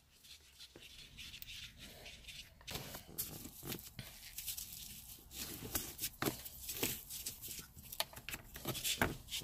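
Handling noise from hands working around a car's centre console: rustling of a cloth-wrapped wire and felt insulation strip, with scattered light clicks of plastic trim clips. It grows busier after the first couple of seconds.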